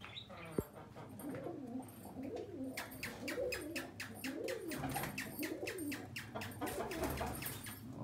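Domestic pigeons cooing, a string of rising-and-falling coos repeated over and over. A single sharp knock comes about half a second in.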